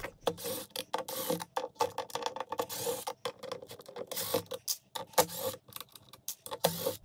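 Makita cordless drill driving Phillips screws out of a metal enclosure plate, whirring in many short stop-start runs with a steady whine.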